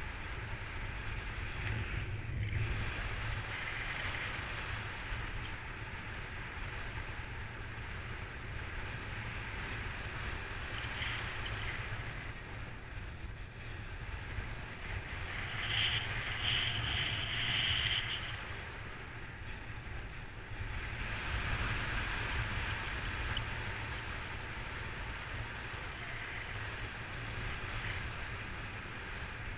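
Wind rushing over the microphone of a camera carried on a paraglider in flight: a steady low rumble with hiss that swells and eases, getting brighter for about two seconds around the middle.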